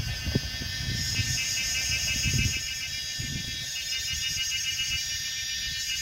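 Cicadas buzzing in a high, pulsing chorus that swells about a second in, over a low rumble from the small forest-railway train as it runs away and fades after a couple of seconds.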